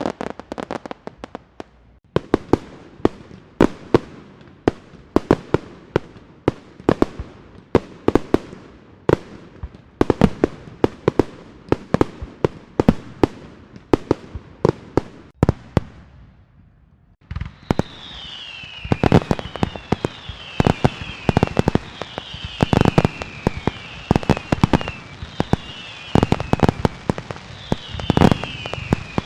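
Fireworks and firecrackers going off: a rapid, dense string of sharp bangs and cracks for the first half, easing briefly. About halfway through comes a steady hiss with whistles that repeatedly fall in pitch, among continued bangs.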